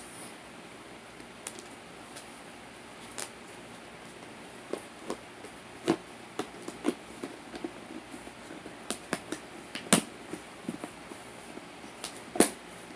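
Laundry starch crumbles being crunched, a series of short, sharp, crisp crunches at an irregular pace, over a faint steady hiss.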